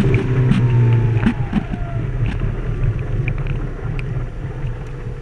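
A boat's engine running underway, its low drone easing off after about a second and a faint whine falling in pitch. A few light knocks come through.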